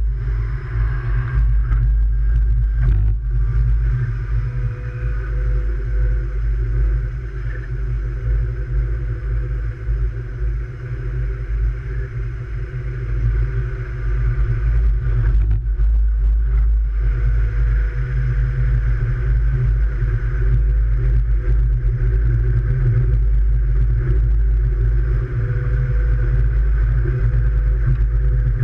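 Light-rail train running along the track, heard from a camera on the front of the train: a heavy, steady low rumble with a faint whine that rises a little in pitch in the first few seconds as the train pulls away from the station.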